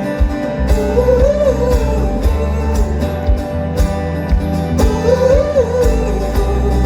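Live folk-rock band playing a passage without lyrics: plucked guitar and banjo over bass and a steady drum beat, with a wavering melody line that swells twice.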